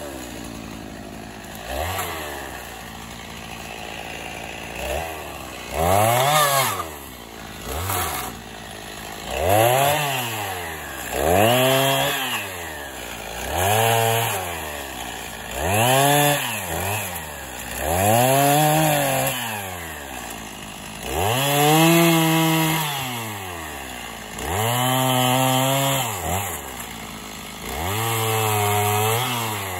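Gas chainsaw idling at first, then from about six seconds in revved up and back down again and again, roughly every two seconds, as it cuts small downed limbs.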